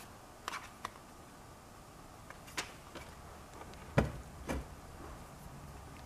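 A few faint knocks and clicks of a multimeter and its test leads being handled and set down on a workbench. The loudest knock comes about four seconds in.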